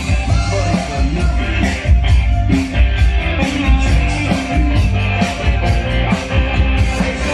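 Loud rock music with drums, bass and electric guitar and a steady beat, played over a PA system.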